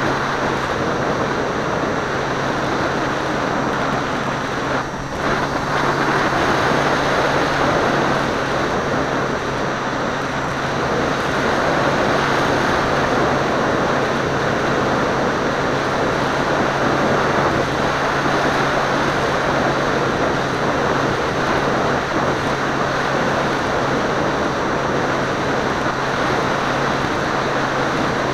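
Seawind seaplane's motor and propeller running steadily in flight, under a constant rush of wind over the aircraft-mounted camera, with a brief dip about five seconds in.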